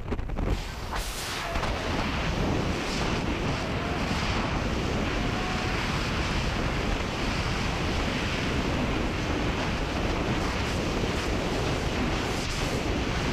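Freefall wind rushing over the camera's microphone during a tandem skydive: a steady, dense rush of wind noise.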